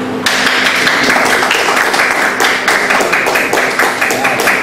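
A group of people applauding, a dense patter of many hands clapping that starts about a quarter second in and runs on to near the end.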